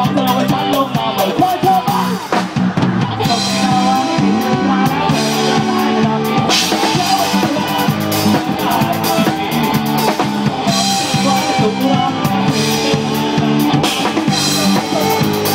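Live rock band playing loud, heard from on stage beside the drum kit. The drums lead the mix, with kick, snare and cymbal crashes played hard over electric guitar, and the cymbals wash brightly from about three seconds in.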